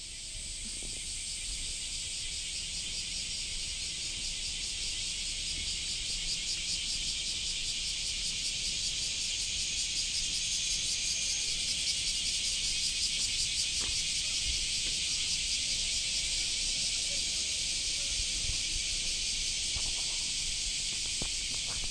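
A steady, high-pitched, rapidly pulsing insect chorus that swells slightly over time.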